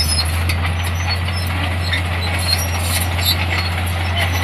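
Diesel engine of a heavy earthmoving machine running with a steady low drone, with scattered light clicks and squeaks over it.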